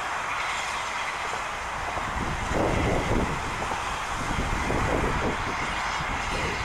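Peppercorn A1 three-cylinder Pacific steam locomotive 60163 Tornado approaching along the track. Its running noise grows louder about two seconds in.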